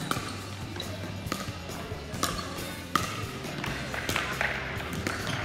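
Pickleball paddles hitting a plastic pickleball in a fast doubles rally: a run of sharp hits roughly once a second, the loudest about three seconds in.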